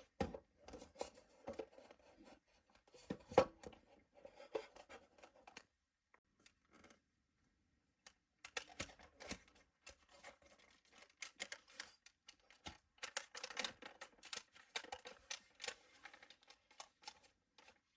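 Hard plastic scraping and clicking as a Podofo aftermarket head unit in its dash bezel is slid into the dash opening, in two spells of handling with a quiet gap of a couple of seconds between; the sharpest click comes about three seconds in.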